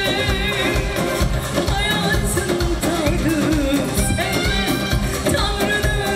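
A woman singing into a microphone with a band: a wavering, ornamented vocal line with vibrato over a steady beat and backing instruments.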